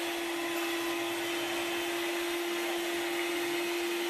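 Electric hand mixer running steadily at one speed, its beaters whipping a white cream mixture in a bowl: a constant motor whine at one pitch over a whirring hiss.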